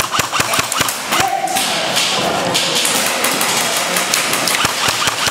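Airsoft guns firing during close-quarters play: many sharp irregular cracks and knocks, with BBs striking hard surfaces, over steady noisy background movement.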